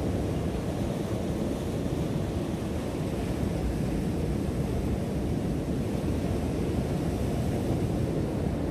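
Ocean surf washing against a rock shelf, a steady low rumble, with wind buffeting the microphone.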